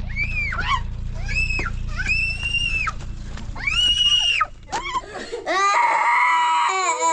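A series of long, shrill screams about a second apart, over wind rumble on the microphone. Near the end the wind drops away and a young girl is crying and wailing.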